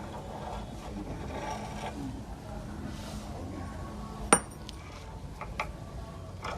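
Workshop handling sounds: light rubbing and scraping, then a single sharp clink with a brief high ring about four seconds in, followed by two lighter clicks.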